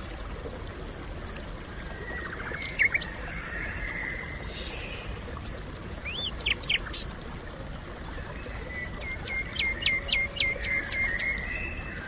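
Woodland birdsong over a steady background hiss: several birds calling with short chirps and quick whistled notes, and near the end one bird gives a rapid series of about eight repeated notes.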